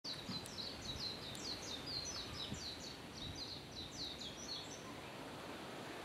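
A small songbird singing a fast run of short, high chirps, each sliding downward, about six a second, breaking off about five seconds in. A few low thumps sound underneath.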